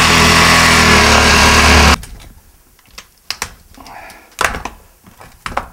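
Sawzall reciprocating saw running at speed, cutting through the plastic case of a 12-volt AGM battery, then cutting off abruptly about two seconds in. After that come scattered sharp clicks, knocks and scraping as the cut-off lid is worked loose from the cell block.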